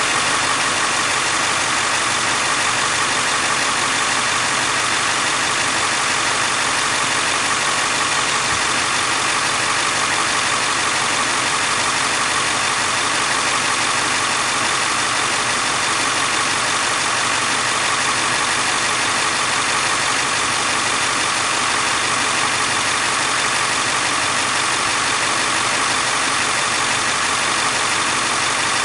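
Ford 7.3 Power Stroke turbo-diesel V8 idling steadily with a little ticking sound, which the owner suspects comes from an injector or a glow plug.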